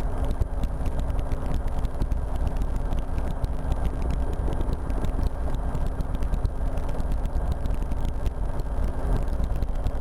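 RotorWay experimental helicopter's engine and rotor running steadily in flight, a continuous loud drone heard from the pilot's seat.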